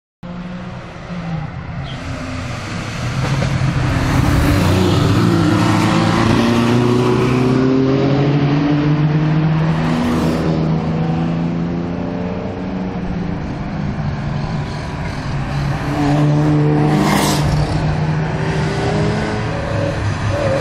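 Engines of several classic race and rally cars revving hard as they come through a bend, their pitch rising and falling with throttle and gear changes; louder from about four seconds in.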